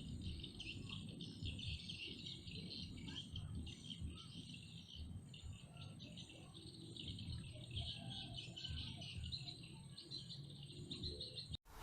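Faint forest ambience: a steady chorus of chirping insects and birds over a low rumble. It cuts off suddenly near the end.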